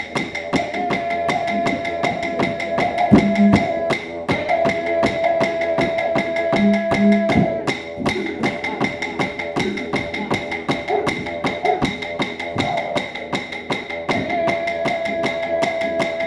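Aboriginal dance music: clapsticks struck in a fast, even rhythm, with long held notes sounding over them in stretches of a few seconds.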